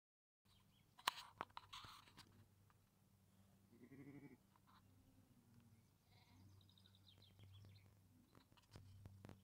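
Sheep bleating faintly, one short call about four seconds in and fainter calls after it, with a few sharp clicks and rustles near the start.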